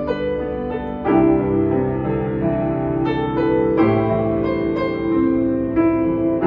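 Grand piano played solo: sustained chords over held bass notes, with fresh chords struck about a second in and again near four seconds.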